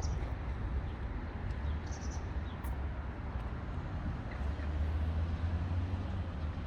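Outdoor ambience of a steady low rumble of distant city traffic, with a few faint, short high chirps and clicks about two seconds in.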